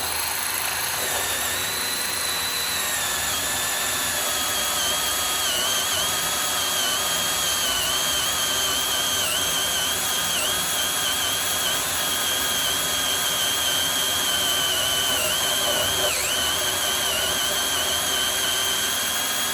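Milwaukee M18 cordless drill running steadily in a magnetic-base drill rig, boring through a safe's steel door. Its high whine wavers and dips in pitch now and then, with a deeper dip near the end.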